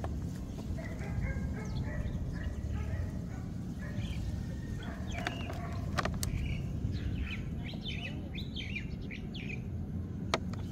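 Small birds chirping, over a steady low rumble. A clear plastic packaging tray being handled gives a couple of sharp clicks, about six seconds in and again near the end.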